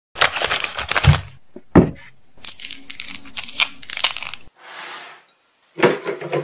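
Plastic packaging on a mesh bag of mandarins crinkling and being cut with scissors, with sharp snips about one and two seconds in. A mandarin's peel is then torn off in a run of small crackles, and near the end peeled mandarins knock into a plastic blender jar.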